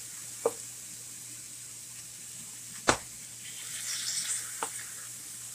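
Chicken pieces frying in a little oil in a nonstick skillet, a steady sizzle. A spatula clicks sharply against the pan three times, loudest about three seconds in, and around four seconds in there is a short rise of scraping and louder sizzling as the pieces are moved.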